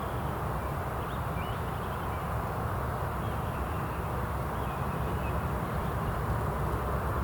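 Faint, distant songbirds chirping in short twittering phrases over a steady outdoor rushing noise.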